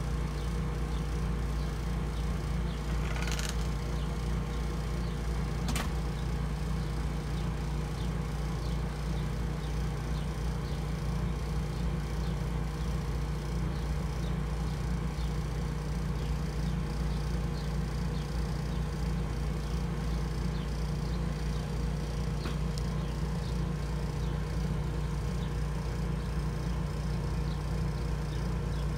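A steady low hum with faint ticking above it, a short rasp about three seconds in and a sharp click near six seconds.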